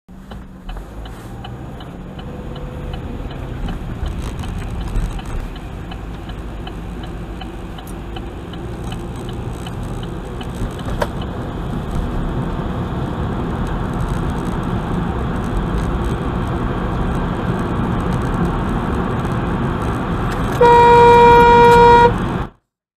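Steady road and tyre noise heard from inside a car, growing louder as it picks up speed, with a light regular ticking in the first several seconds. Near the end a car horn sounds loudly for about a second and a half in warning at a car cutting in, then the sound cuts off abruptly.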